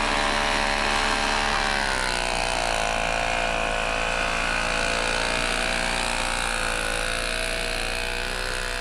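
Gasoline snowblower engine running steadily under load, its pitch dipping slightly about two seconds in.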